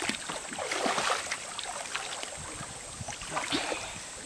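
Water splashing in a shallow river as a swimmer in a mask dives and kicks at the surface, with two surges of splashing: about a second in and again a little past three seconds.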